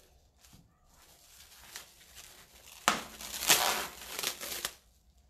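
Plastic cling film crinkling and tearing as it is pulled from its roll and wrapped around a ball of dough. Faint at first, then about two seconds of loud crackling past the middle that stops abruptly.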